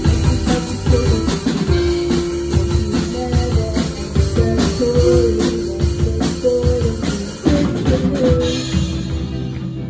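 Live rock band playing an instrumental passage: electric guitars holding sustained notes over bass guitar and a drum kit.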